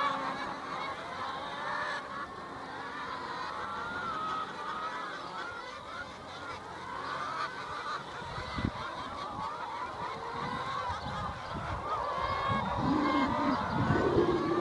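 A large flock of brown laying hens calling and clucking together, many wavering calls overlapping. A low rumbling noise joins in about halfway through and grows louder near the end.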